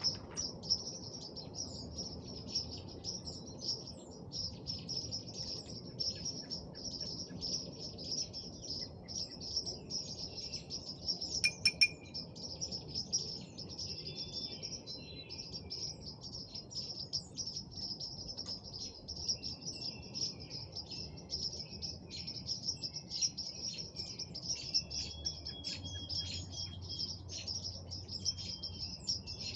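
Spring evening chorus: a dense, continuous high-pitched chirping with scattered shorter bird calls over it, and one louder call about twelve seconds in, above a low steady background rumble.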